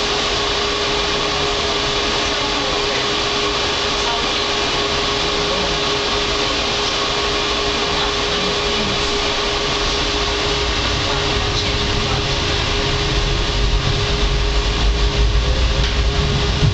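Tram running noise: a steady hiss with a constant hum tone, and a low rumble from the rails that builds from about two-thirds of the way through as the tram moves along the track.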